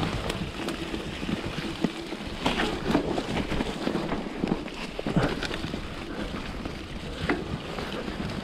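Specialized Enduro Comp mountain bike riding a wet, muddy trail: tyres rolling through mud and water with many irregular knocks and rattles from the bike over bumps, and wind noise on the microphone.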